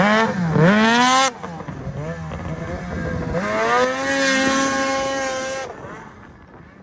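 Snowmobile engine revving hard as the sled accelerates through snow, its pitch climbing steeply and then cutting off suddenly just over a second in. A second run rises and holds at high revs, then fades as the sled pulls away.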